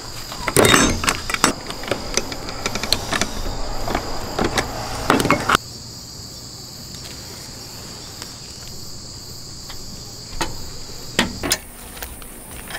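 Sharp metallic clicks and knocks of parts being handled and fitted onto a cordless angle grinder and its steel jig, busy in the first half and sparse after an abrupt drop a little past halfway, with a couple more knocks near the end. Insects chirp steadily in the background.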